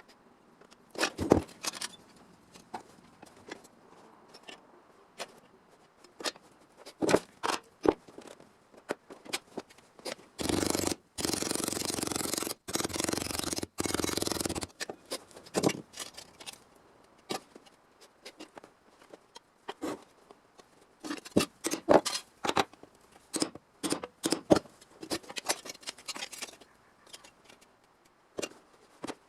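Sheet steel being cut with hand snips: a run of sharp separate snips and clicks. About a third of the way in, a harsh continuous cutting or scraping noise lasts roughly four seconds with brief breaks.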